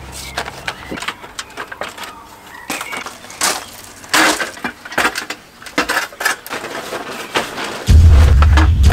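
Scattered knocks, clanks and rustles as a plastic tarpaulin is handled and an aluminium stepladder is moved and climbed. About eight seconds in, a loud low rumble starts and keeps on.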